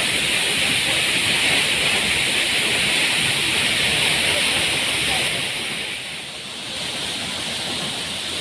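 Waterfall rushing: a steady hiss of falling water, which eases briefly about six seconds in and then carries on a little quieter.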